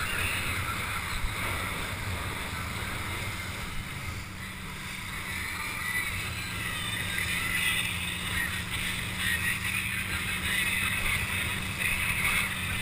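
A towed board planing across lake water: a steady hiss of spray with wind buffeting the helmet-mounted microphone, over a constant low hum.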